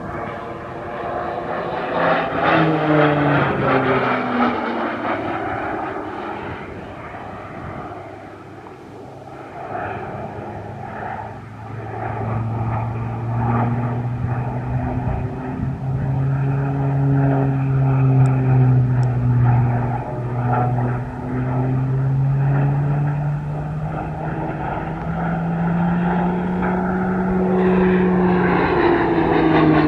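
PZL-130 Orlik turboprop trainers flying past in formation, their engine and propeller drone shifting in pitch as they go by. The pitch falls as a pass ends a couple of seconds in and again near the end.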